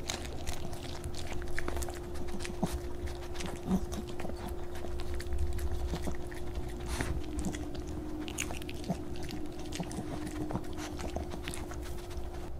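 Small dog biting and chewing a homemade beet dog cookie, with irregular crisp crunches and clicks of teeth throughout. A faint steady hum lies underneath.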